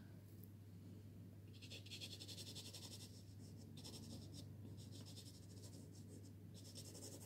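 Faint dry scratching of a soft pastel stick stroked quickly back and forth on pastel card. It starts about a second and a half in and comes in several runs with short pauses between them.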